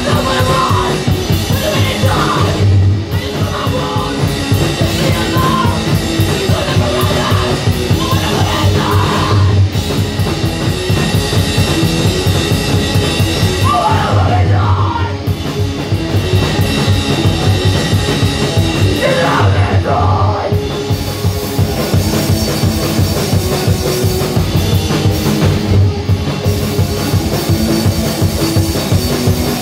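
Live rock band playing loud: guitar, drum kit and a singer's vocals coming in at intervals.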